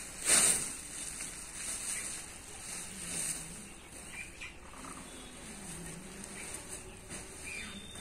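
Soft rustling of hands working through a monkey's fur, with a short, louder rustle about a third of a second in. Faint bird chirps come and go in the background.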